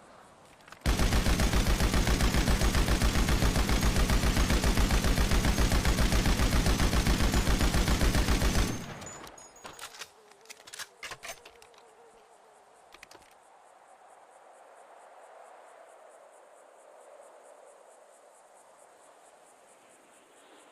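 Machine gun firing one long continuous burst of rapid, evenly spaced shots for about eight seconds, then stopping abruptly. A few separate sharp clicks follow, then only a faint steady background.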